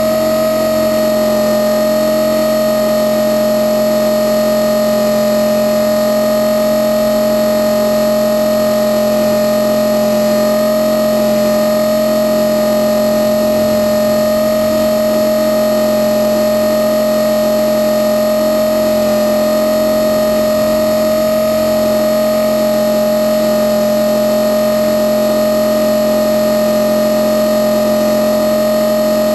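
Blade 450 X electric RC helicopter heard close up from its onboard camera: a steady high whine from the electric motor and drive gears, with rotor noise beneath, holding one pitch.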